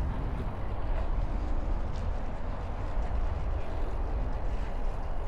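Steady low rumble with a hiss over it, outdoor background noise picked up by the action camera's microphone, with no clear events.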